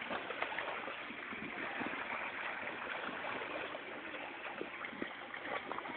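Pool water lapping and splashing lightly around a swimming child, a steady watery wash with small scattered splashes.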